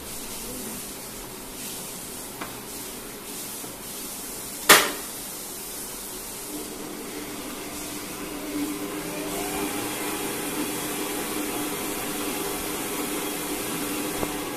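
A single sharp clack about five seconds in, then the Sokany planetary stand mixer's motor starts and runs with a steady hum, rising in pitch as the speed knob is turned up, its wire whisk beating cream in the steel bowl.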